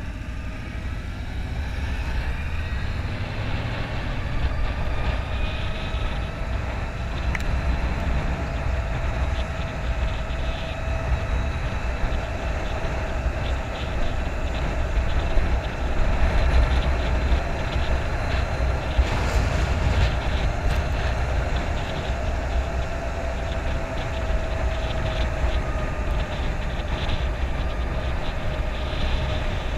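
Harley-Davidson LiveWire electric motorcycle under way: a high electric drivetrain whine that rises in pitch over the first few seconds as it speeds up, then holds steady and dips slightly near the end. Heavy wind rumble on the microphone is the loudest part.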